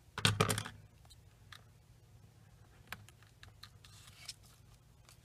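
Scissors snipping a piece of 3D foam mounting tape to trim it narrower, a short run of cuts about half a second in. After that come faint scattered clicks and rustles of cardstock and tape being handled.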